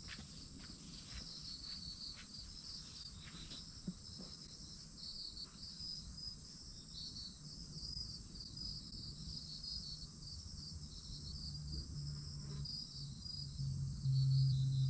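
Crickets chirping in a fast, pulsing trill over a low rumble, with a few soft knocks in the first seconds and a louder low hum near the end.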